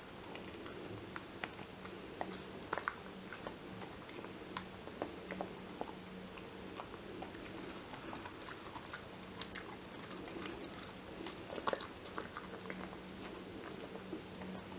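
Kai Ken dog gnawing and chewing a Purina Dentalife dental chew stick with its side teeth: irregular small crunches and clicks, a few louder crunches a little under 3 seconds in and near 12 seconds in.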